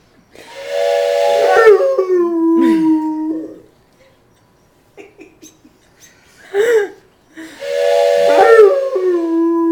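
A train whistle blown twice, each time a breathy chord of steady tones. Each time a Bull Mastiff mix dog joins in with a howl that slides down and then holds, imitating the whistle.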